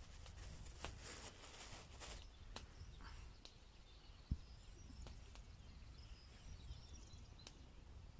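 Thin plastic bag crinkling as it is handled, then a few light clicks and a soft thump about four seconds in, the loudest sound. Faint bird chirps.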